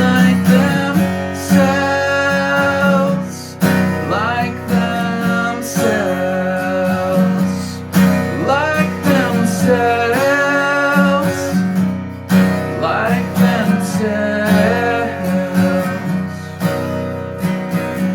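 Acoustic guitar strummed in a steady rhythm with a melody line over it, some notes bending in pitch: an instrumental passage of a live song without singing.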